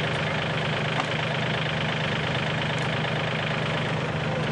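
Skid-steer loader's engine running steadily, a constant low hum, with a light knock about a second in.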